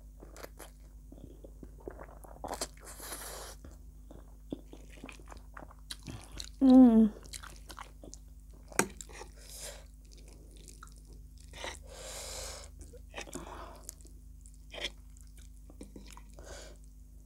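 Close-miked chewing of a mouthful of instant pasta noodles, with soft mouth noises and a few sharp clicks of fork tines against the plate. A brief hum comes from the eater about seven seconds in.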